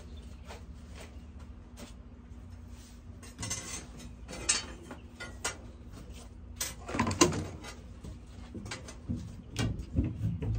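A T-square and marking crayon knocking and scraping against a steam locomotive's boiler backhead and its fittings: scattered taps, clicks and short scrapes, busiest about halfway through and near the end.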